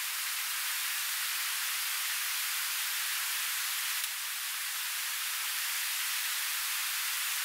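Rushing stream water tumbling over rocks: a steady, high hiss, with a single faint click about four seconds in.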